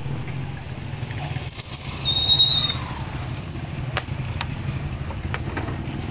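Small motorcycle engine idling with a steady low rumble, with a brief high squeal about two seconds in and a few sharp clicks near the middle.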